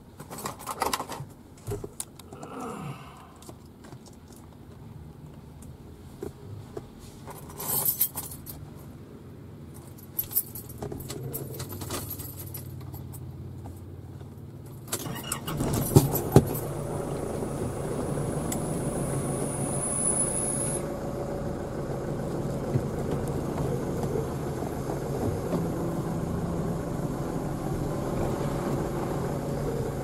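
Jangling and clicking handling noises, then about halfway through a car's steady engine and road noise comes in abruptly, with two sharp knocks just after, and runs on.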